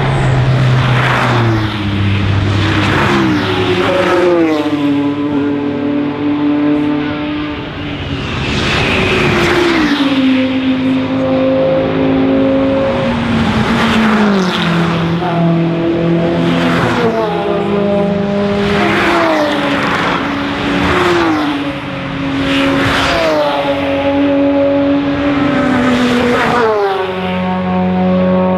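A mixed field of GT and touring race cars passing one after another under hard acceleration, about eight or nine in turn. Each engine note steps through gear changes and drops in pitch as the car goes by.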